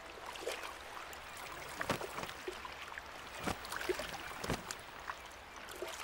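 Shallow river water splashing and trickling around a wading brown bear's legs, with a few sharper splashes.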